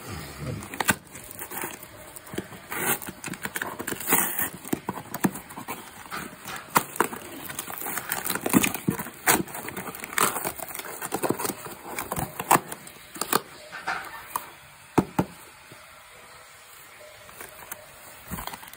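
Hands cutting and tearing open a parcel's packaging by hand: irregular rustling, crackling and sharp clicks, thinning out for the last few seconds.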